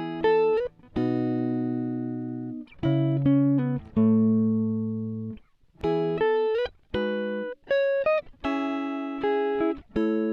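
Music: plucked guitar chords and short note runs, each group ringing out and fading, with brief gaps between.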